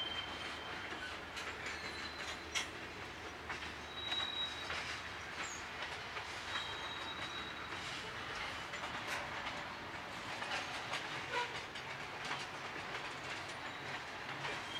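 Freight cars of a Norfolk Southern train rolling steadily past, a continuous rumble with the clickety-clack of wheels over rail joints. Brief thin high-pitched wheel squeals come and go now and then.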